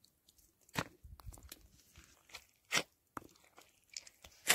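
Wooden pestle pounding fresh tomato, green chilli and herb chutney in a wooden mortar: a handful of sharp crunching strokes at uneven intervals, the loudest near the end.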